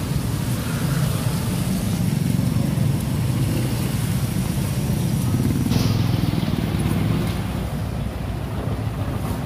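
Street traffic on a wet road: motorcycles and cars in a jam passing close by, with a steady engine rumble and tyre noise. About six seconds in, the sound changes abruptly to a quieter, duller background.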